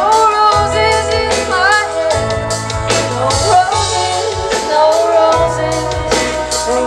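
Live band music with a woman singing into a microphone over the band's accompaniment, held low bass notes and regular drum hits.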